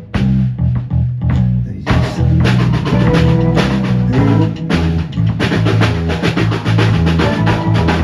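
Rock band playing an instrumental passage with no singing, the drum kit prominent with bass drum and snare hits over low sustained bass notes.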